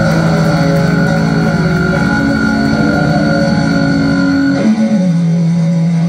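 Live hardcore punk band: distorted electric guitars holding sustained, ringing chords over bass, played loud through the club PA. About four and a half seconds in, the chord changes and the deep low end drops away.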